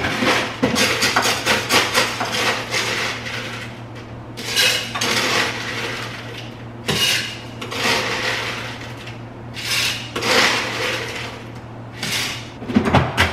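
Ice scooped from a countertop ice maker and dropped into a stainless steel Stanley tumbler: rattling and clinking of ice in several bursts, over a steady low hum.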